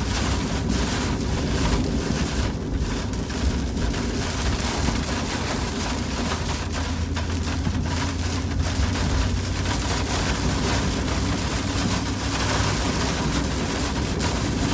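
Steady cabin noise of a car driving on a rain-soaked road: a low road-and-engine rumble under the hiss of wet tyres and rain on the car.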